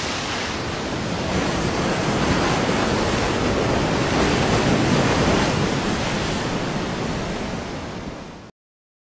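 Large ocean waves breaking: a steady rush of surf that cuts off suddenly near the end.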